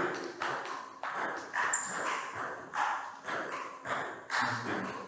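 Table tennis ball clicking against bats and the table, a sharp tap roughly every half second with a little ring from the hall.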